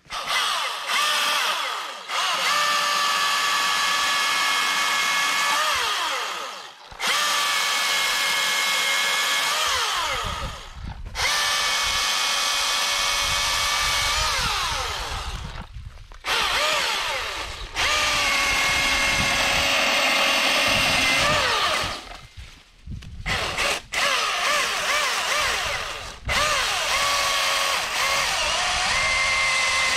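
Milwaukee M18 battery chainsaw cutting a thin birch trunk into firewood rounds: the electric motor whines, stopping and restarting about eight times between cuts, its pitch sagging and recovering as the chain bites into the wood.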